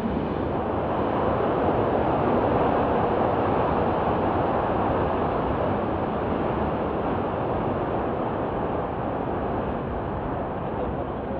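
F-15E Strike Eagle's twin Pratt & Whitney F100 turbofans in full afterburner on the takeoff roll: a steady, deep roar. It swells over the first couple of seconds, then slowly fades as the jet moves away.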